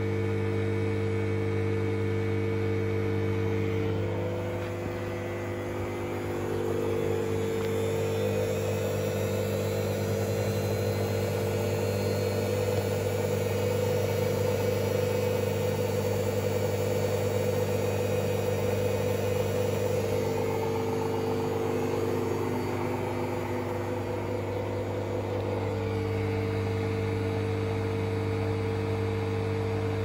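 Beko WM8120 washing machine running, its motor turning the drum through the drive belt: a steady hum with a whine that rises a few seconds in and eases off again after about twenty seconds.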